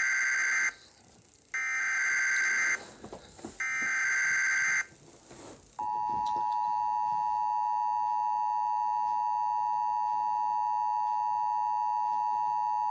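Emergency Alert System tornado warning signal: the end of one burst and then two more bursts of SAME digital header data, each about a second long, followed about six seconds in by the steady two-tone EAS attention signal.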